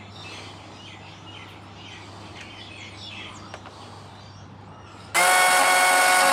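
Birds chirping over a low steady hum. About five seconds in, a chainsaw cuts in abruptly and runs loudly and steadily.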